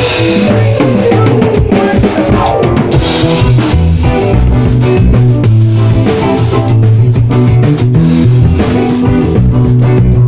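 Live rock band jamming: drum kit with kick and snare hits under sustained guitar and bass notes, played loud.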